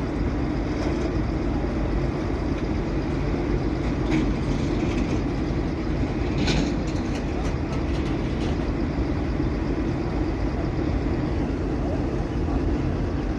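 Heavy road-construction machinery running with a steady low engine drone, with a few sharp clicks about six and a half seconds in.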